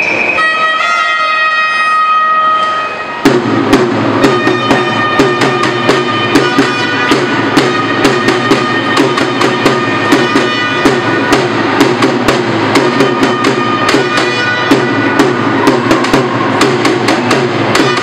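Music: sustained notes at first, then a bass line and a steady drum beat that come in about three seconds in.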